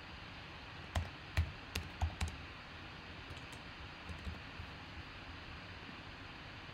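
Five sharp clicks in quick succession over about a second and a half, then two fainter clicks a couple of seconds later, over a steady low hiss.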